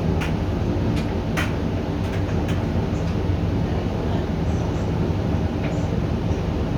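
Hoover 8 kg dryer running on its Eco Cotton Dry programme: a steady drone of the motor, fan and turning drum, with a few sharp clicks over the first few seconds.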